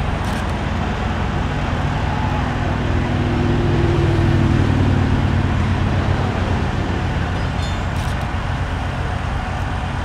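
A large engine running steadily with a low hum, growing louder toward the middle and easing off again after.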